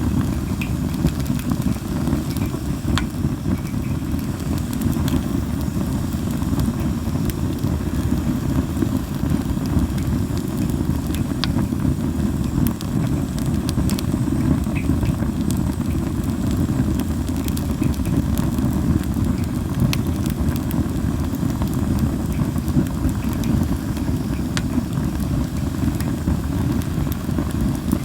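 Linden wood fire burning in a fire pit, a steady low noise under scattered sharp crackles and pops.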